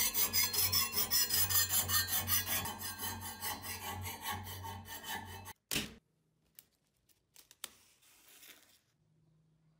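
Fast back-and-forth hand strokes of an abrasive stick rubbing along the edge of a steel cleaver blade, about three to four strokes a second. The rubbing stops suddenly about five and a half seconds in, with a short knock, followed by a few faint handling ticks.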